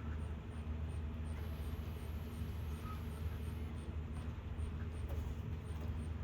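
Steady low rumble of an idling vehicle engine, with faint high ticks repeating about three times a second.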